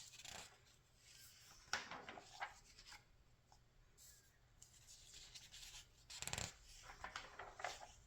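Magazine pages being turned and handled by hand: a series of faint paper rustles and swishes, with a soft thump about six seconds in.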